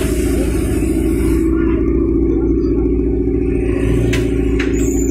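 JCB 3DX backhoe loader's diesel engine running steadily under load, with a high hiss that fades out about a second and a half in and a couple of short sharp clicks near the end.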